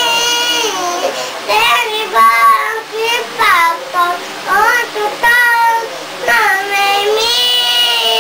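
A young girl singing in a high child's voice, holding long notes that slide and waver, with short breaks between phrases.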